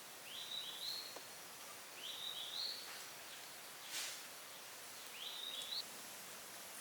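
A bird calling three times, each call a short phrase of two quick rising notes, over faint outdoor hiss, with a single sharp click about four seconds in.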